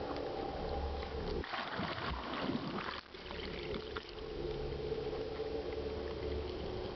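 Steady drone of a towing motorboat's engine with water rushing past. About a second and a half in, a burst of splashing water covers it for a second or more, then the engine drone returns.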